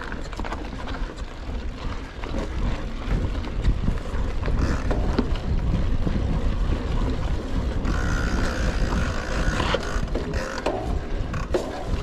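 Rockrider XC 900 mountain bike being ridden along forest singletrack. Wind rumbles on the GoPro microphone over the rattle and tyre noise of the bike on the trail, with a brighter hissing stretch from about eight to ten seconds in.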